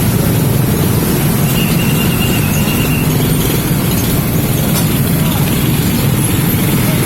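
A steady low rumble, like an engine or traffic, runs throughout. About a second and a half in, a faint high trill lasts about a second and a half: a young sunbird practising its song.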